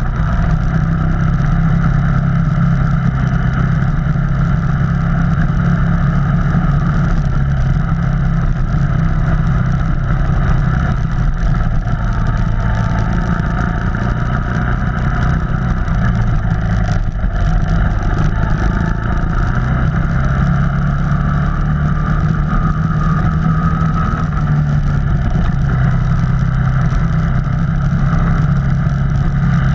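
Off-road vehicle engine running steadily, a continuous low drone that changes little in pitch or loudness.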